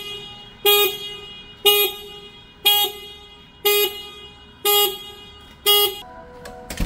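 Anti-theft alarm of a Naxeon IM electric motorcycle going off in loud, short honks about once a second, set off by the locked, parked bike being moved. The honking stops about six seconds in, and a single knock follows near the end.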